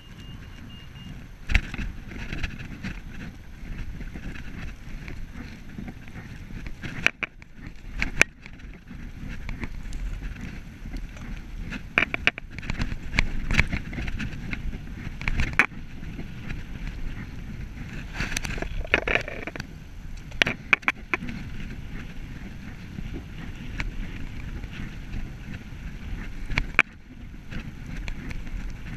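Road bike riding along a tarmac path: steady wind noise on the microphone and tyre noise, broken by scattered sharp knocks and rattles from the bike. A brief electronic beeping sounds at the very start.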